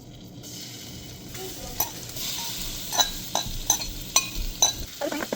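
Seasoned bluegill fillets frying in a pan of hot oil: a steady sizzle that swells in about half a second in, with several sharp clicks and pops through the second half.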